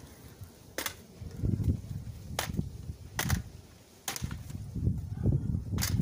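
A cheap box fan's thin metal housing being bent and stomped on: about five sharp clanks and snaps, spaced irregularly, over a low rumble.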